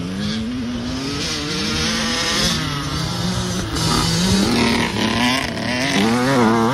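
Several dirt bike engines revving up and down, overlapping, as the bikes ride past one after another.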